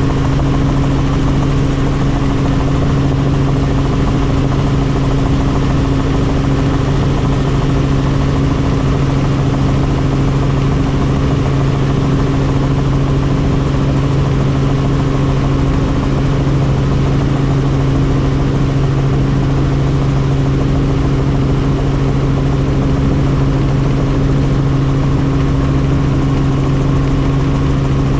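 Helicopter in flight, its engine and rotors running steadily: a constant low hum over a noisy rush, unchanging in pitch and level.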